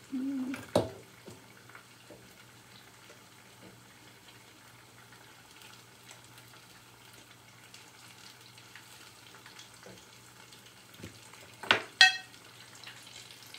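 Ripe-plantain rolls stuffed with cheese frying in a pot of oil, with a faint steady sizzle. A utensil clicks about a second in, and near the end two sharp clinks of metal utensils, the second one ringing.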